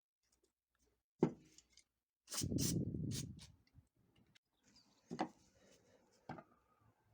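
Hands working with small parts and tools: a few sharp clicks and knocks, with a rattling stretch of about a second near the middle.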